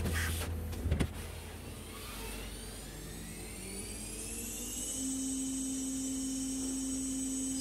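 CNC machining center's spindle winding up, its whine rising in pitch over a few seconds and then holding a steady high whine at cutting speed. Flood coolant hisses under it, and there is a single knock about a second in.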